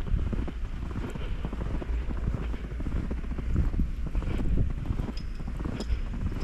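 Footsteps crunching steadily through about half a foot of fresh snow, with a low wind rumble on the microphone underneath.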